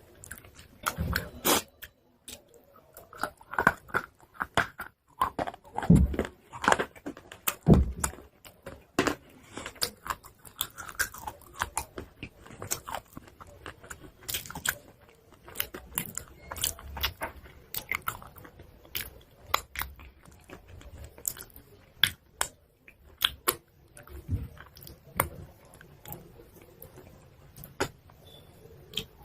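Pieces of chalk crunching as they are bitten and chewed close to the microphone: irregular sharp crunches and crackles, a few louder bites among them.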